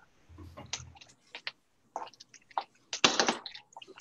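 Cooking utensils and cookware being handled at a stove: a scatter of light clicks and knocks, with one louder short rattle about three seconds in.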